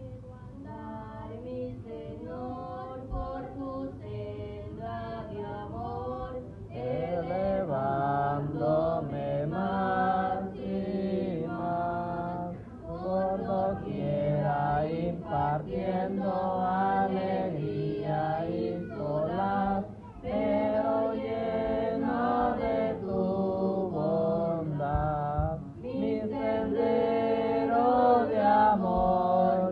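A girl and a boy singing a Spanish-language hymn of praise together into handheld microphones, their voices carried through the church's sound system.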